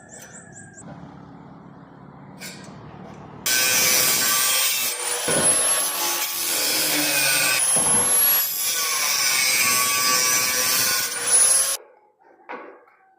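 Angle grinder with a cut-off disc cutting through steel: a loud gritty rasp with a high whine that rises and falls as the load on the disc changes. It starts about three and a half seconds in after a quieter low hum, and stops abruptly near the end.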